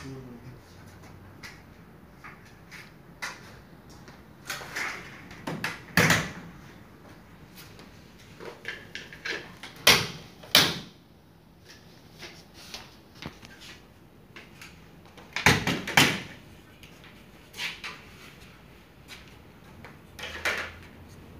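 Scattered plastic clicks and knocks as the intake grille and panel of a Daikin VRV ceiling cassette unit are unlatched and handled. The loudest knocks come about six, ten and sixteen seconds in.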